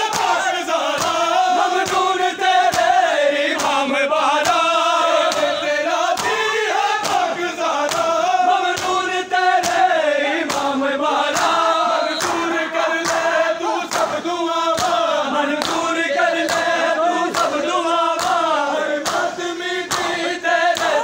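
A crowd of men chanting a Shia noha in unison to a rhythmic beat of chest-beating (matam) slaps, about two slaps a second.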